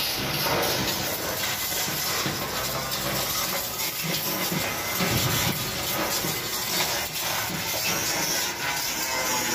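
A steady hiss that holds at one level throughout, with a faint low hum beneath it.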